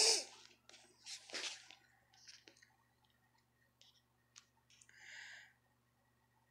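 Faint scattered clicks and a few short soft swishes over a low steady hum.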